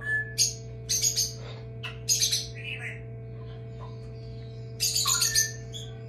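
Newly hatched Moluccan cockatoo chick calling in several bursts of short, harsh, high-pitched squeaks. A steady low hum from the egg incubator runs underneath.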